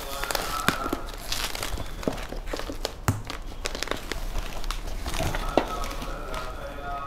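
Plastic bubble-wrap packing and cardboard rustling and crinkling as a parcel is unpacked by hand, with irregular sharp crackles and a few knocks from the box.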